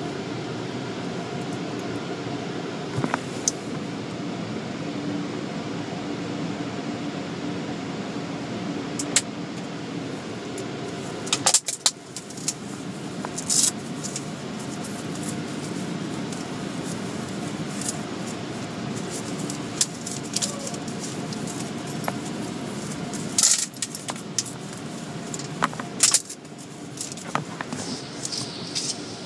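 Steady machinery hum at a car wash, heard from inside a car, with several sharp clicks and jingling rattles scattered through it.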